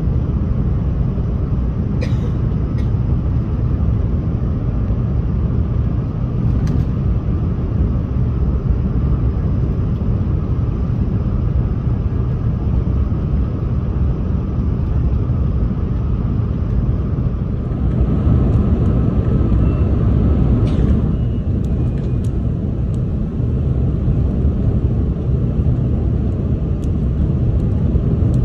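Steady low rumble of a Renfe Class S120 high-speed train running, with a few faint clicks; the sound shifts slightly about two-thirds of the way through.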